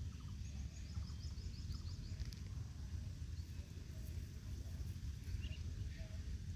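Outdoor ambience with a steady low rumble. A bird gives a quick run of high chirps in the first couple of seconds.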